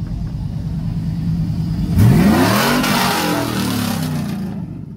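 Car engine running steadily, then revved hard about two seconds in. The pitch jumps up and falls away over the next two seconds, with a loud rushing hiss alongside, and the sound drops off near the end.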